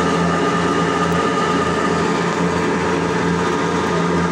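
Metal lathe running steadily with a constant humming drone from its motor and gearing while knurling a spinning steel workpiece.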